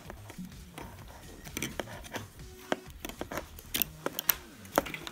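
Irregular clicks and taps of a nylon bark collar's strap, buckle and plastic receiver being handled on a stone countertop, the sharpest a little before the end. Faint music plays underneath.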